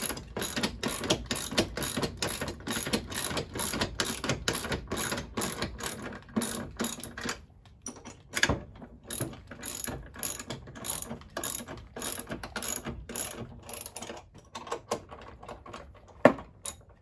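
9/16-inch socket wrench ratchet clicking as bolts are tightened through a roof-anchor backer plate. Rapid continuous clicking thins out about seven seconds in to short runs and single clicks, with a louder knock near the end.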